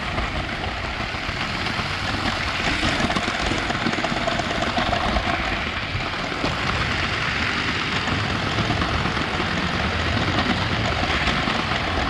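Lego 9V train running along its track, heard from a camera riding on it: a steady whir of the electric motor with the rattle of the wheels on the metal-topped rails.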